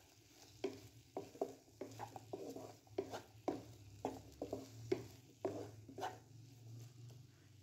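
Wooden spatula stirring chopped onion, tomato and green capsicum frying in oil in a non-stick karahi: a string of short scrapes and taps, one or two a second, over the sizzle of the frying vegetables. The strokes stop a little after six seconds in.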